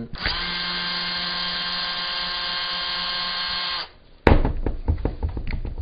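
A small electric power tool motor runs with a steady whine for about three and a half seconds and then stops. About half a second later comes a sharp knock, the loudest sound, followed by light clattering and handling knocks.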